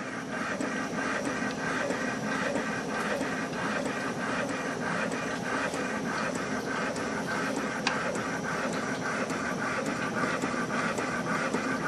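Home-built large Stirling engine running, its displacer drive linkage making a steady, rhythmic mechanical clatter of evenly spaced clicks.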